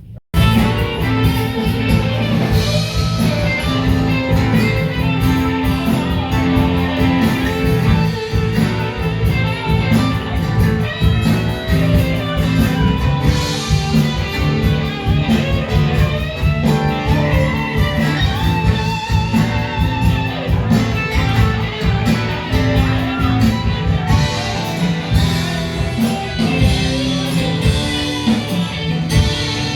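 Background music led by guitar with a steady beat, starting suddenly just after a brief moment of silence.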